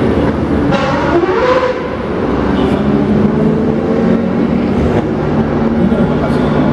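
Engines of classic racing cars and motorcycles passing on a parade lap, several running at once in a steady drone, with one engine revving up briefly about a second in.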